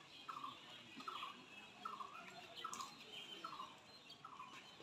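A bird repeating one short call that falls in pitch, about every 0.8 s, six times over.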